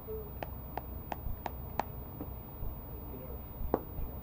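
A run of five quick sharp taps, about three a second, then a single louder tap near the end.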